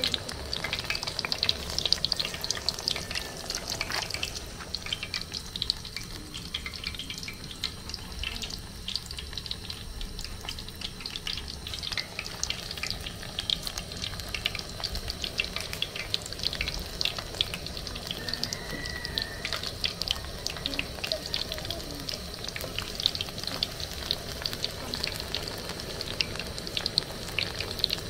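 Balls of plantain puff puff batter deep-frying in a pan of hot oil: a steady sizzle with many small, quick crackles.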